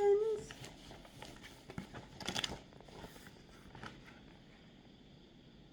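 A brief held vocal tone at the very start, then scattered light rustling and clicking handling noises, with a louder crinkling rustle about two and a half seconds in, settling to quiet room tone.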